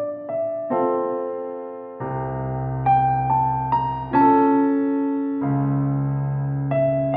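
Background music: gentle electric piano playing slow sustained chords, with bass notes joining about two seconds in and again near the end.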